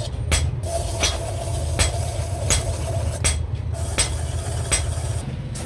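Belt-driven metal-spinning lathe running with a steady low hum while a hand-held steel tool scrapes against the spinning sheet-iron pan blank. A sharp click repeats evenly about every three quarters of a second.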